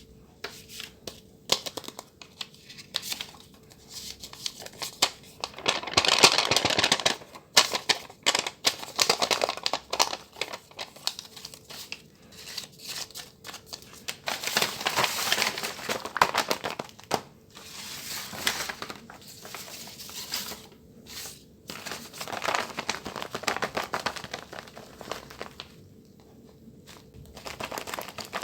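Paper crinkling and rustling as a handmade paper squishy package is handled and unwrapped, with some tearing. Louder bursts come about six seconds in and again around fifteen seconds in.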